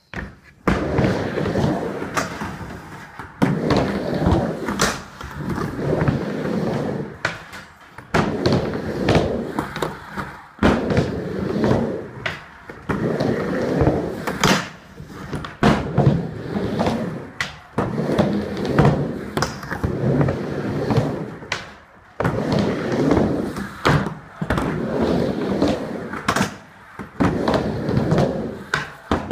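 Skateboard wheels rolling back and forth across a wooden mini ramp. A rumble swells and fades about every two seconds, with sharp knocks from the board at the turns.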